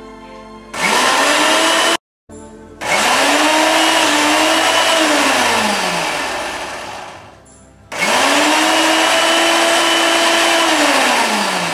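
Electric mixer-grinder (mixie) grinding boiled spinach, potato and green chillies in short pulses. The motor whirs up to speed, holds for a few seconds and winds down, three times. It is pulsed so the purée stays coarse rather than fine.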